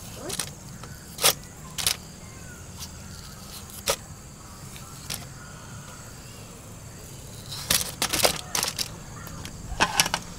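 Pieces of boiled potato being cut by hand and dropping into an aluminium-foil tray: short sharp taps and foil crinkles, single ones a second or two apart, then quick clusters about eight seconds in and near the end, over a steady low hum.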